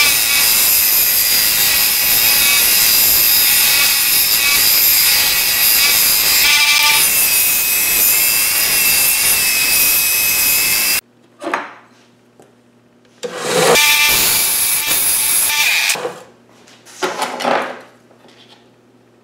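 Small bench belt sander running while a spring-steel knife blank is ground against the belt: a steady grinding hiss with a whine, which stops abruptly about 11 seconds in. After that, a few short clatters and scrapes of things being handled, with a low hum between them.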